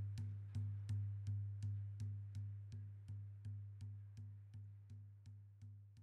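Hand drum beaten in a steady rhythm of about three strokes a second, each stroke a sharp hit with a deep, ringing boom that dies away before the next. The drumming gradually fades out.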